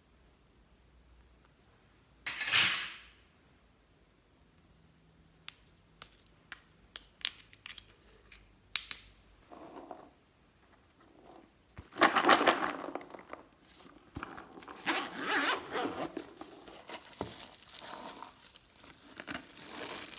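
Hands working slime and small objects: a swish, then a run of sharp clicks, then several spells of crackly, squishing noise as the slime is pressed and mixed.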